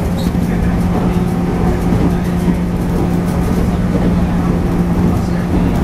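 JR 113 series electric train running at a steady speed, recorded aboard: a steady hum from its MT54 traction motors over continuous rail noise.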